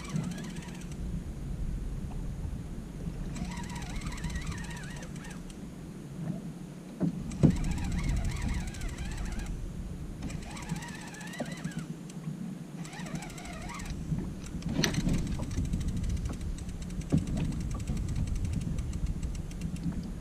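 Fishing reel cranked in repeated bursts of a second or two, with short pauses between, as a heavy fish is pumped up from deep water. A steady low rumble runs under it, and there are a couple of sharp knocks.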